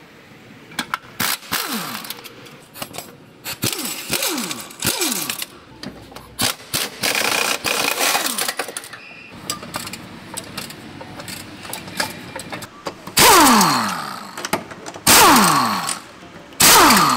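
Power ratchet undoing bolts on the underside of a car, run in short bursts that each end in a falling whine as the motor spins down. Softer bursts through the first half, then three loud ones in the last few seconds.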